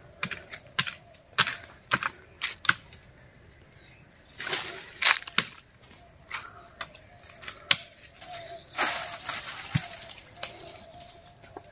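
Sharp knocks and clicks at irregular intervals, about a dozen, with a short burst of rustling about nine seconds in.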